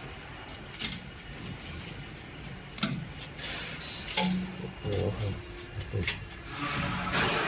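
Handling noises from fitting welding wire to the machine: several sharp clicks and knocks with rustling swishes in between, over a steady low hum.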